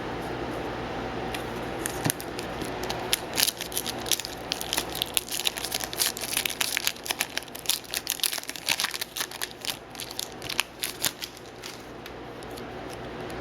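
A foil hockey card pack wrapper being torn open and crinkled, a dense run of sharp crackles for most of the stretch that stops a second or two before the end.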